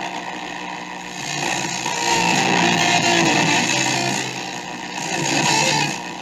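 A restored 1965 Delco tube radio hissing with static and faint snatches of broadcast as its dial is tuned between stations, the level swelling and dropping as it goes.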